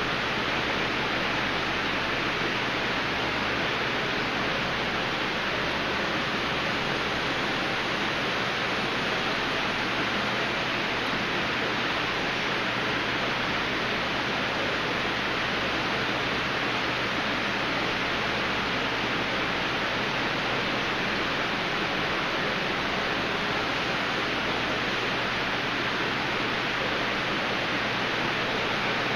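Aquarium filtration running: a steady, even rush of water that stays level throughout.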